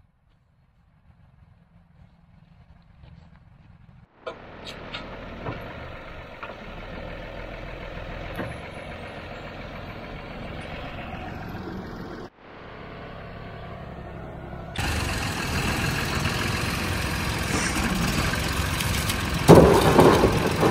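An engine running, heard across several short cut clips. The first four seconds are nearly silent, and the engine gets louder in the last few seconds, with a brief surge near the end.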